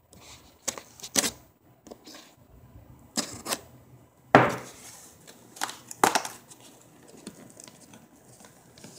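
A knife blade picking and scraping at packing tape along the seam of a cardboard box: a series of short sharp scratches and knocks, the loudest about four and a half seconds in, then lighter ticks near the end.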